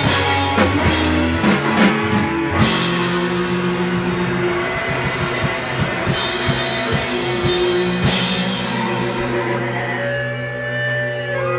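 A rock band playing live, with drums, guitar and bass. Cymbal crashes come about two and a half and eight seconds in. Near the end the drums drop out and the guitar and bass chords ring on.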